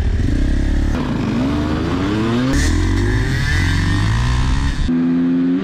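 Dirt bike engines revving and accelerating, the pitch rising in several pulls. Near the end the sound cuts abruptly to a steady, held engine note.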